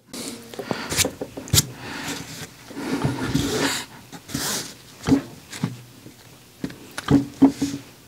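A small aluminium flashlight being handled on a table: its tail cap is unscrewed and parts are set down, with several sharp clicks and knocks among rustling handling noise.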